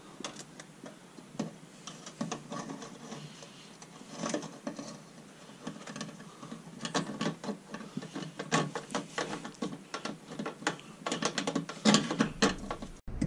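Irregular small clicks, taps and scrapes of metal and plastic parts being handled as a car's in-tank fuel pump assembly is seated in the tank and its mounting flange fitted by hand. The clicks come thicker and louder in the second half.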